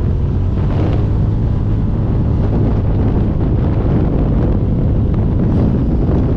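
Polaris RZR engine running under way, with heavy wind buffeting the microphone.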